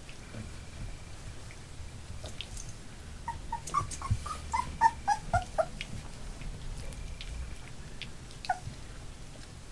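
Labrador puppies about three weeks old whimpering and yipping: a quick run of about a dozen short, high squeaks in the middle, the last ones dropping in pitch, then one more squeak near the end.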